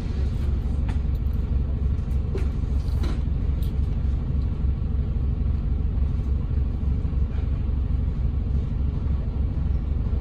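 Interior sound of a Volvo B5TL / Wright Gemini 3 double-decker bus running: a steady low rumble, with a few faint clicks in the first few seconds.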